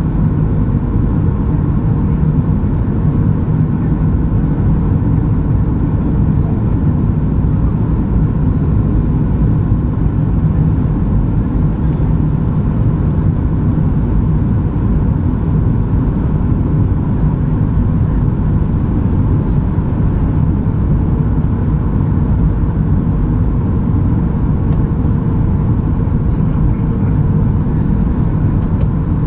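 Steady in-flight cabin noise of a Boeing 737-800 on descent: a deep, even rumble of airflow and its CFM56-7B engines, with faint steady tones above it.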